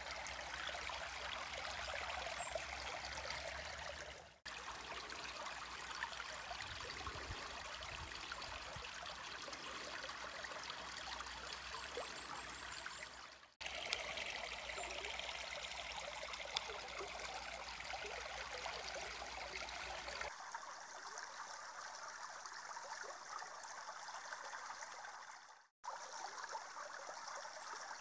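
Stream water flowing steadily, a continuous rushing babble. It cuts out briefly three times, and a low rumble under it stops about two-thirds of the way through.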